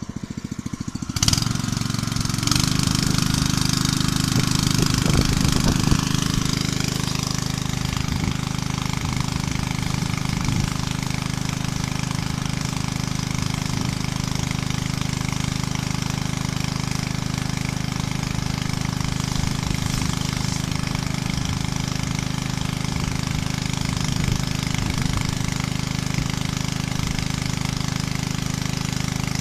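Small engine driving a pesticide spray pump that feeds a long hose: it comes in about a second in, picks up a moment later, then runs steadily.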